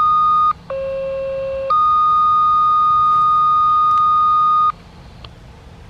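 Fire dispatch activation paging tones received on a radio scanner: a loud, steady high beep. About half a second in, it switches to a quieter, lower tone for about a second, then returns to the high tone for about three seconds and cuts off abruptly, leaving faint radio hiss. The tones signal that the fire siren is about to be set off.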